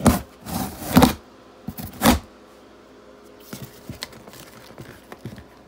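Sealed cardboard shipping box being cut and torn open by hand: three short ripping rasps in the first two seconds, then a few faint rustles and clicks.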